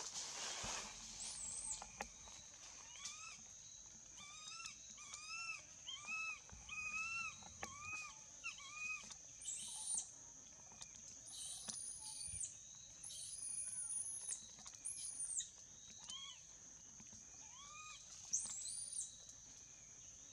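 Baby macaque crying: runs of short, arched cries, about two a second, with a few higher, longer squeals in between, the calls of an infant separated from its mother.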